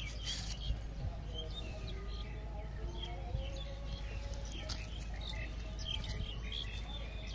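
Birds chirping in many short, scattered calls over steady low background noise, with two brief knocks early and about halfway through.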